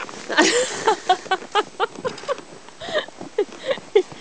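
Footsteps in snow: a quick run of short, squeaky crunches several times a second, with a brief rustle of clothing about half a second in.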